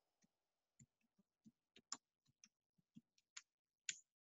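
Faint computer keyboard typing: a string of irregular key clicks, the loudest about two seconds in and again near the end.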